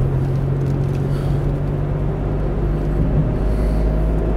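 Car engine and road noise heard from inside the cabin while driving: a steady low hum and rumble.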